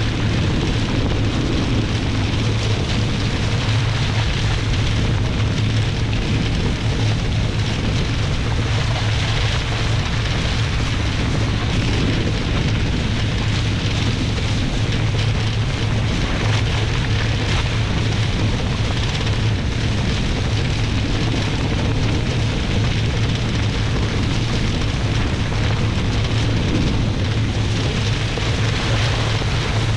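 Steady wind rumbling on the microphone, mixed with the hiss of water rushing past the hulls of a Nacra 20 catamaran sailing fast downwind.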